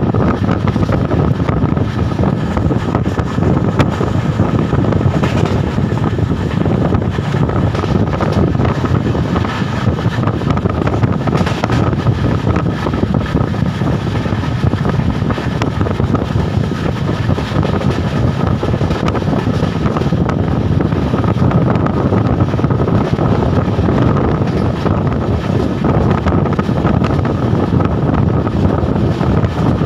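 Steady running noise of a passenger train moving at speed, with wind rushing on the microphone.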